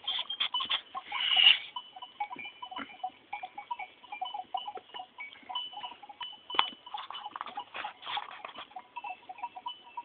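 A grazing goat herd with their bells clinking irregularly, and one louder goat bleat about a second and a half in.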